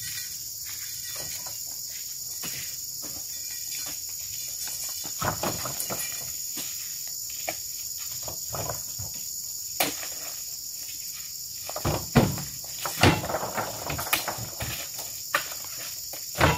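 A steady high drone of insects, with scattered thuds and knocks as oil palm fruit bunches are tossed up into a wooden-sided truck bed, most of them in the second half.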